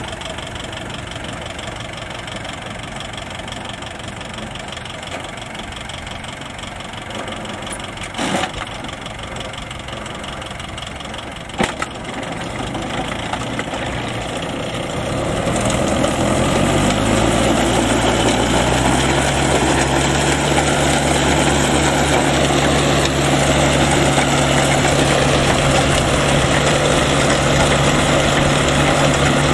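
Shibaura tractor's engine running steadily, driving a rotary levee-building attachment through a PTO shaft, with two sharp knocks in the first half. About halfway through, the engine speeds up and gets louder, then holds a higher steady pitch while the levee builder flings mud to build the bund.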